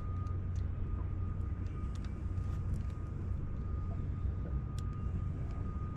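A boat motor holding the boat in place runs with a steady low hum and a faint constant high whine, with a few light ticks over it.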